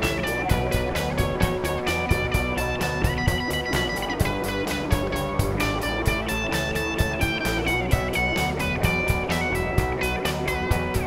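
Live rock band playing an instrumental passage without vocals: electric guitars over a steady drum beat, with long held high notes stepping from one pitch to the next.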